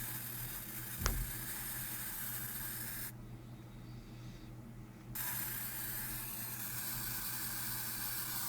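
Steady static hiss from a Xiaomi Note 3 Pro phone, the fault behind its sound problem. The hiss cuts out about three seconds in and comes back about two seconds later, over a low hum, with a single sharp click about a second in.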